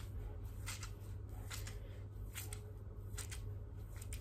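Hands scrunching styling mousse into wet hair: short rustling strokes, about one a second, over a low steady hum.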